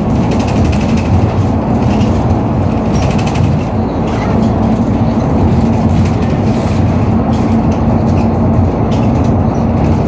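Cabin noise inside a moving city bus: a steady engine and road rumble with a constant low hum and light rattles.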